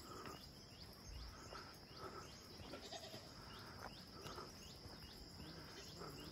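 Faint countryside ambience: a steady high-pitched insect buzz with short falling chirps repeating two or three times a second, and faint animal calls.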